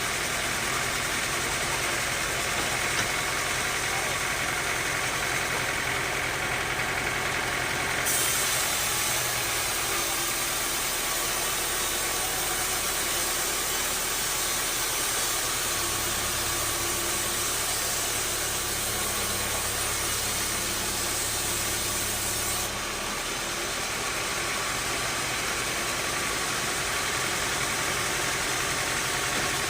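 Bandsaw sawmill running with a steady engine drone. About a quarter of the way in, a bright hiss starts abruptly, the blade cutting through the log, and it stops sharply about three quarters of the way through.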